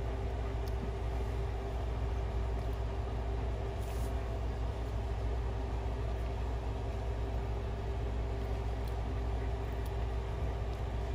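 Steady low background hum with a constant faint tone in it, like a running air conditioner or fan; no distinct events, only a couple of faint ticks.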